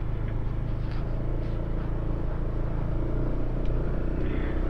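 Motorcycle engine running steadily at low speed, an even low hum with no revving.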